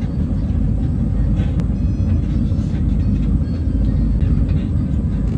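Steady low rumble of a garden sightseeing tram in motion, heard from aboard, with a few faint clicks and rattles.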